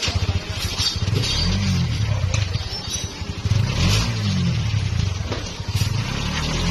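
A vehicle engine running nearby, revving up and dropping back twice, about a second and a half and four seconds in, over its steady low hum. Occasional light clicks come from a rebuilt steering rack being handled and worked by hand.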